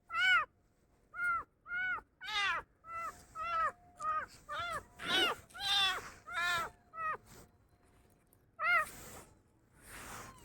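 Kitten meowing over and over, about a dozen short, high, arched meows in quick succession, then a pause and one more loud meow. A softer breathy noise follows near the end.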